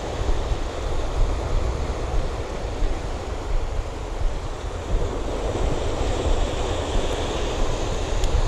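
Steady wind rushing over the microphone with a low rumble, over the wash of ocean surf.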